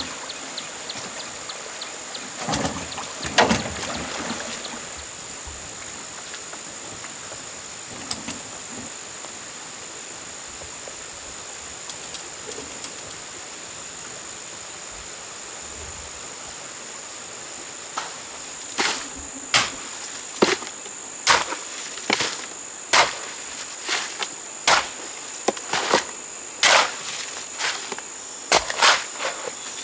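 Steady high-pitched insect drone, with a few sharp knocks a few seconds in and, from about two-thirds of the way through, a run of sharp knocks coming roughly one to two a second.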